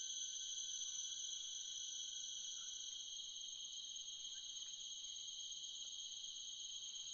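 Steady chorus of insects along a forest stream, a continuous high-pitched shrill drone.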